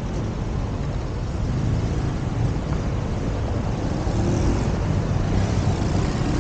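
Street traffic: the steady noise of passing cars and engines, with one vehicle's engine note rising as it accelerates in the last couple of seconds.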